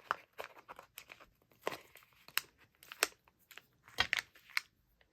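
Stamp sticker sheets being peeled and handled: an irregular run of short crinkles, crackles and small clicks, which stops shortly before the end.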